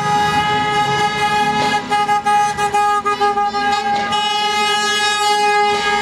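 Car horns honking in a slow traffic caravan, several long held blasts overlapping in a steady chorus of tones: celebratory honking after a football win.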